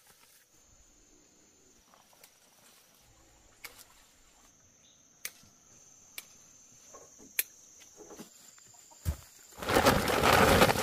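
Insects keep up a faint, steady high-pitched drone outdoors, with a few sharp clicks. Near the end comes a thump, then a loud burst of noise for about a second.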